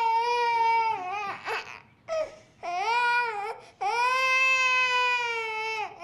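Baby crying hard: long, high wails, three in a row, broken by short gasping breaths.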